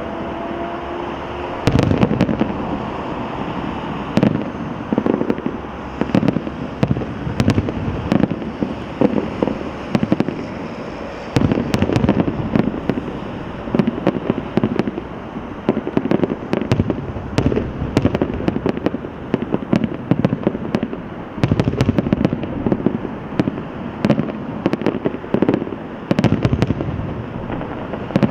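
Aerial fireworks display: shells bursting in rapid, dense volleys of bangs over a continuous crackle and rumble, with a few short whistling tones in the first second.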